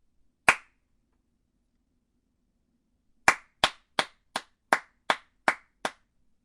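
A single person's hand claps: one clap, then after a pause of nearly three seconds a run of eight quick claps, about three a second.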